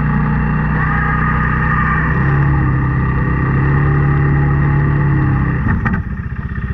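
Snow-clearing machine's engine running steadily, its note shifting slightly about two seconds in. Near the end there is a short knock, and the engine drops to a slower, pulsing run.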